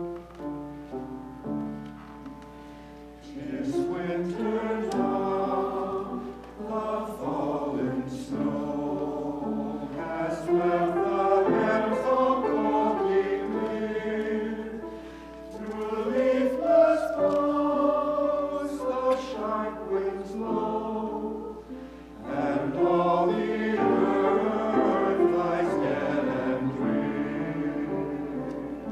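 Mixed church choir singing in parts with piano accompaniment. The piano plays alone for about the first three seconds before the choir comes in, and the singing pauses briefly between phrases twice.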